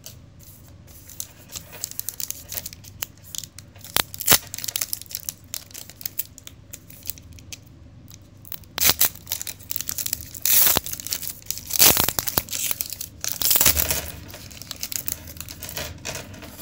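Foil wrapper of a trading-card pack being torn open and crinkled by hand: a string of crackles, growing louder and denser past the middle.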